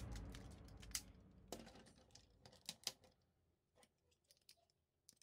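Music fading out in the first second, then faint, scattered clicks and snaps of plastic Tobot robot toy parts being handled and fitted together, the clicks thinning out after about three seconds.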